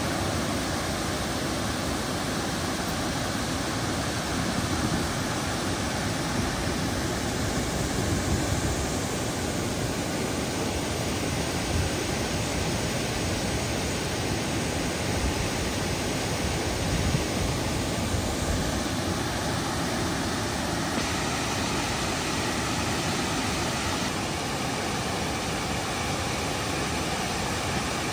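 Steady rushing of the river current below a dam, an even hiss with small swells in level.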